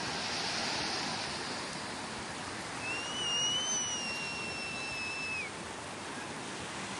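Sea surf washing steadily onto a beach, a wave surging in near the start. About three seconds in, a single long, steady whistle sounds over the surf for about two and a half seconds.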